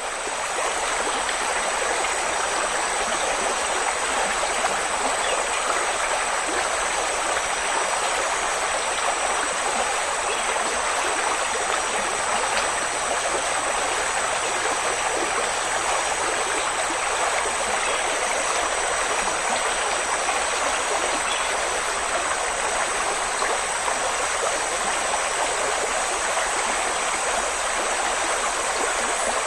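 Steady, unbroken outdoor rushing noise, with a constant thin high-pitched tone above it.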